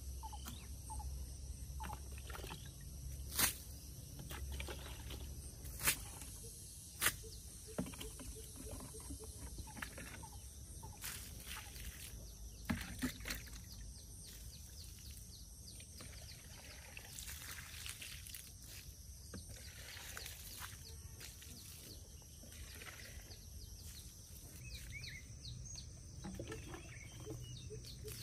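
Rural outdoor ambience: a steady high-pitched background with faint animal calls, broken by a handful of sharp knocks in the first half.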